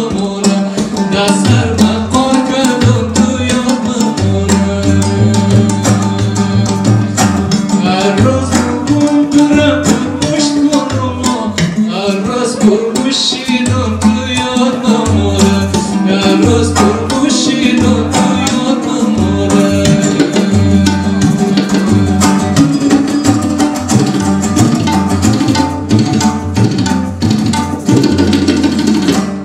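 Live Hazaragi folk music: a dambura, a long-necked lute, played rhythmically over steady drumming and a repeating low bass part.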